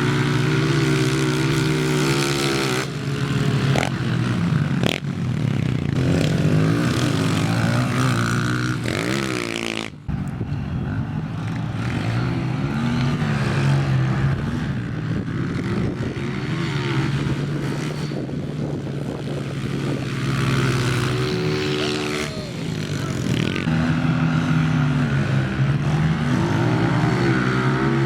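Small four-stroke single-cylinder pit bike engines revving hard on a sand hill climb. The pitch rises and falls again and again with throttle and gear changes, and the sound cuts off abruptly about ten seconds in before the engine noise picks up again.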